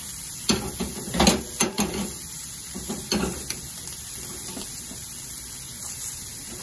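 Chopped onion sizzling in oil in a small saucepan on a gas burner, with several clanks of the pan against the stove grate as it is shaken in the first two seconds and once more about three seconds in.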